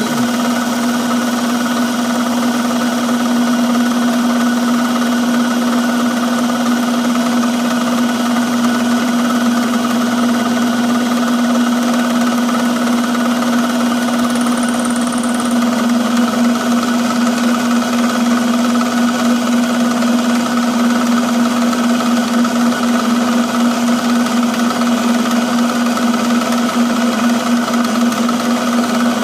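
Milling machine running steadily with a strong even hum, a 1/2 inch cutter taking a pass along the edge of a metal part to round it off.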